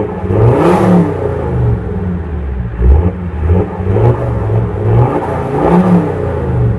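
Alfa Romeo 2.4 JTD five-cylinder turbodiesel heard at the exhaust of a parked Alfa Romeo 159 fitted with a straight pipe and no DPF. It is revved up and let fall back several times.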